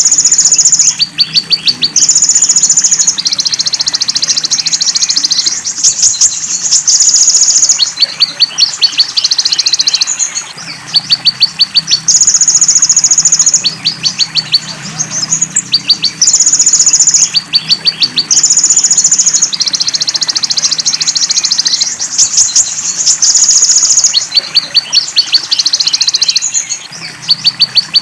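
Konin (kolibri ninja, a sunbird) song filled with imitations of belalang emas and cililin, played as a repeating loop: high-pitched long buzzy trills alternate with rapid ticking series, the whole phrase coming round about every seven seconds.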